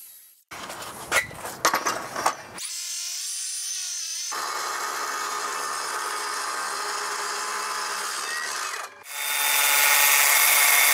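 Milwaukee cordless circular saw cutting cement board in a few short stretches: rough cutting with sharp knocks in the first two seconds, a brief whine of the spinning blade, then a steady even cut under load that grows louder about nine seconds in.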